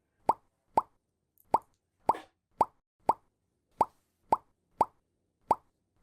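A string of short, evenly paced plop sound effects, about two a second, each a quick droplet-like pop.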